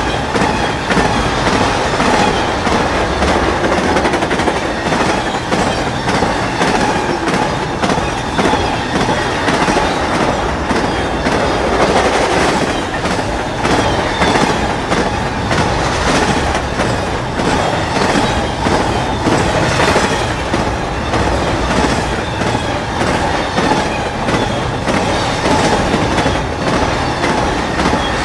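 BNSF freight train cars rolling past, steel wheels clacking steadily over the rail joints in a continuous loud rumble.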